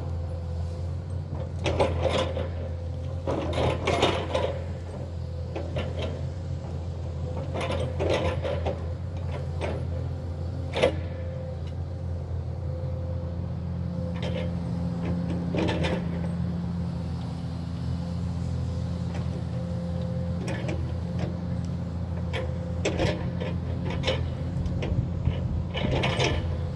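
Hyundai crawler excavator's diesel engine running steadily under work, with an extra hum joining about halfway through. Irregular sharp cracks and crunches cut through it as brush, roots and stumps are torn out by the forks and grapple.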